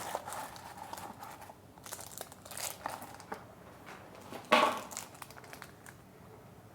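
Plastic packaging crinkling and rustling as it is handled and opened, with one louder crackle about four and a half seconds in.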